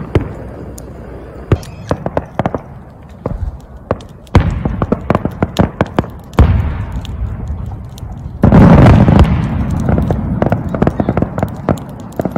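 Fireworks display: a string of sharp crackles with three big shell bursts a few seconds apart, the loudest about two-thirds of the way through, followed by more crackling.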